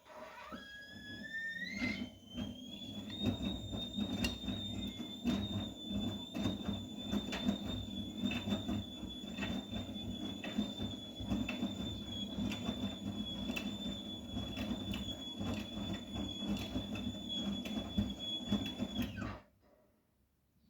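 Vestel CMI 97302 washing machine's drum motor turning the drum: a whine rises over about two seconds to a steady high pitch, with irregular knocks throughout. Near the end the whine drops and the motor stops.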